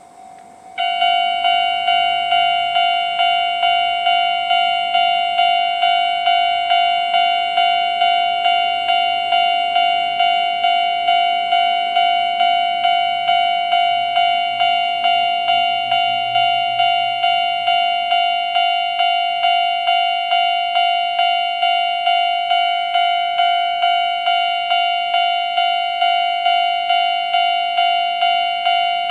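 Japanese level-crossing warning alarm of the old standard electronic type switching on about a second in, then sounding a fast, evenly repeating bell-like ding that signals an approaching train.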